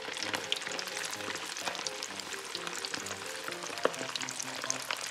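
Cornstarch-coated fish pieces deep-frying in hot canola oil in a carbon steel wok, a steady sizzle full of fine crackles, with soft background music underneath.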